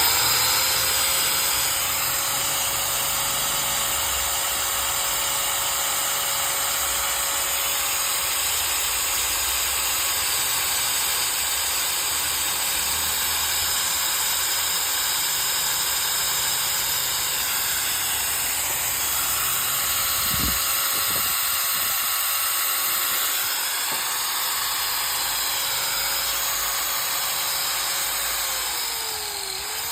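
Makita 9553B 4-inch angle grinder running free with no load: a steady high motor whine over a bright hiss, reaching full speed at the start. Near the end its pitch dips briefly and then comes back up.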